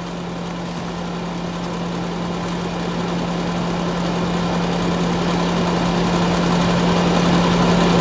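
Comfort Zone electric fan heater running on high heat: a steady fan-motor hum under a rush of blown air, growing gradually louder.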